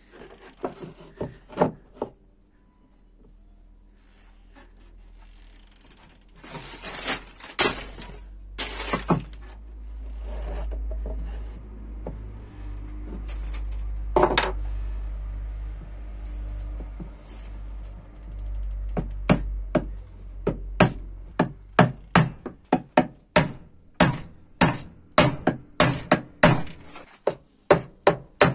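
Small hammer driving a thin nail into a sweet chestnut board: a run of sharp taps, about two a second, through the second half. Before it come scattered knocks and clatter of wood pieces on the workbench and a low rumble.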